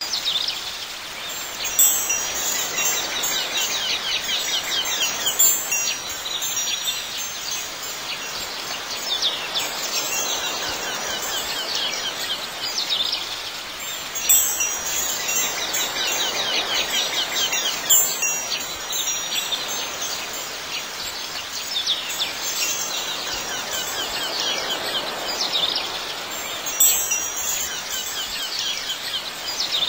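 Chimes tinkling in shimmering runs that recur every few seconds, over a steady hiss.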